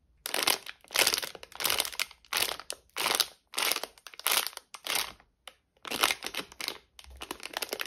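A sealed plastic bath-ball sachet crinkling as hands squeeze and flex it: about a dozen short crinkles, one every half second or so.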